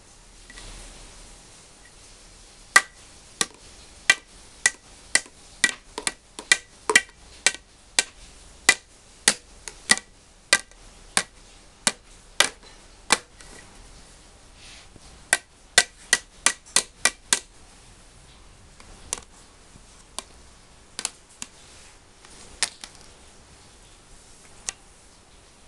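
A wooden stick rapping on hollow plastic building blocks: sharp knocks about two a second, a quicker run of them about two-thirds of the way through, then a few scattered taps.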